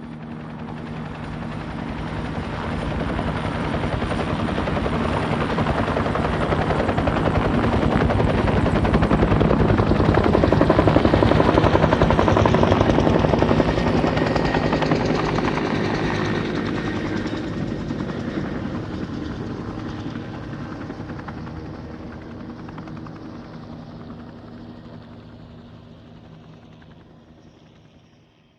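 Helicopter passing overhead, its rotor chop building steadily, loudest about halfway through, then fading away as it departs.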